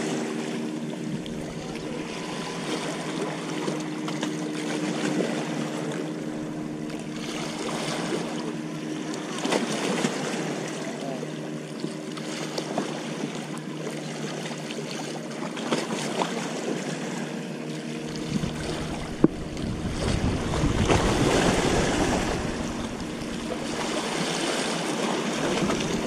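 Small waves washing against the rocks of a harbour breakwater, over a steady engine drone. The wash swells louder about twenty seconds in, and there is a single sharp click a little before that.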